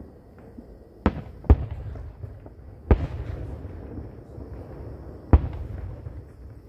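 Aerial firework shells bursting at a distance: four sharp booms, two in quick succession near the start, then one about three seconds in and one past five seconds, with a low rumble between them.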